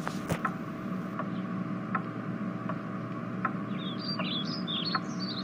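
Background ambience: a steady low hum with a few faint ticks, and a run of quick high bird chirps starting a little past halfway.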